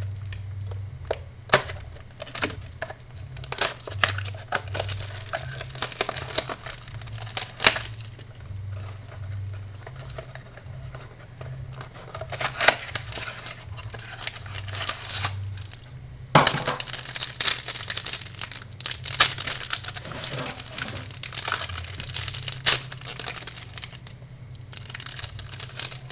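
A box and packs of baseball cards being opened by hand: irregular tearing and crinkling of wrappers with sharp clicks and rustles, louder bursts around the middle and after about two-thirds of the way through.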